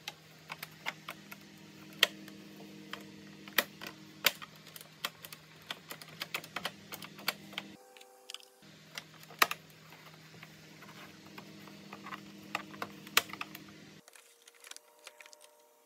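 Rigid plastic housing parts of a vacuum cleaner being handled and pressed into place, giving many irregular sharp clicks and taps. A steady low hum runs underneath; it breaks off briefly near the middle and stops about two seconds before the end.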